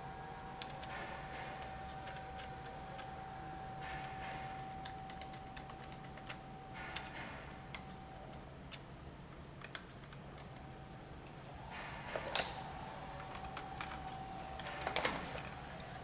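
Irregular small clicks and short scrapes of stiff copper wires and a four-way switch being handled as its crossed traveler wires are moved to the correct terminals, with one sharper click about twelve seconds in and a cluster of clicks near the end.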